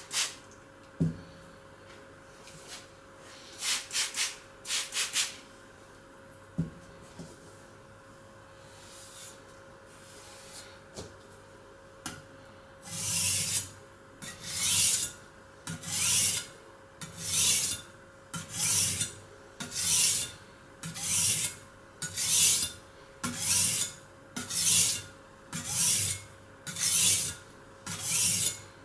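A Chinese vegetable cleaver is scraped back and forth across a wet sharpening stone, a regular gritty rasp about every 1.3 seconds that begins about halfway through. Earlier come a few short hisses of a spray bottle wetting the stone.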